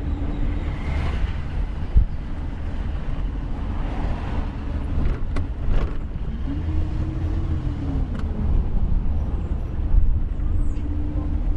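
Car running along a street, heard from inside the cab: a steady low engine and road rumble, with the engine note rising and falling once partway through. A few light clicks sound over it.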